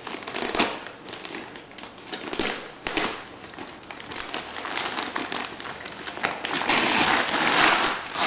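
Gift wrapping paper being torn and crinkled by a small child's hands as a present is unwrapped, in irregular rustling bursts. It is loudest and most continuous near the end.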